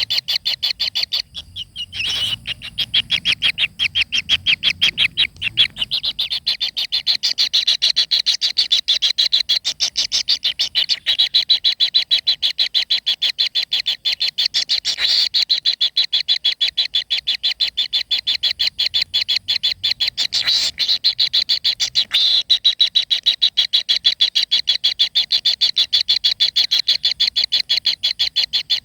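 A fast, steady, high-pitched pulsed trill from a calling animal, many pulses a second. It breaks off briefly near the start, then runs on unbroken.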